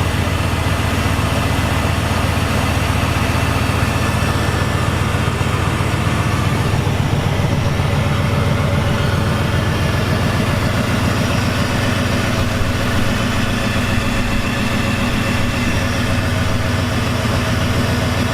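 Engine running at a steady idle after being fired up for the first time.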